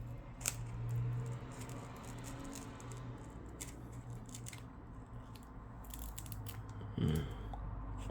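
Scattered small clicks and crackles of a pry tool working under the broken LCD of a Samsung Galaxy Tab A (T290), separating it from its adhesive, with a louder knock about seven seconds in.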